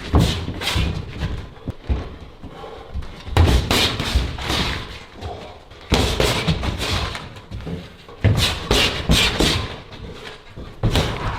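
Boxing gloves striking the pads in flurries of sharp thuds, a new flurry every two to three seconds.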